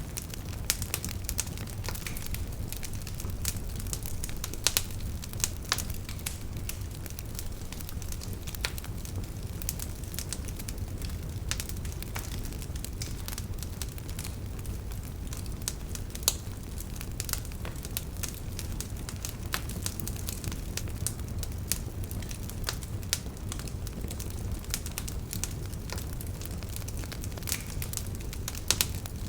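Campfire burning steadily, with a low rumble of flames and frequent sharp, irregular crackles and pops of burning wood.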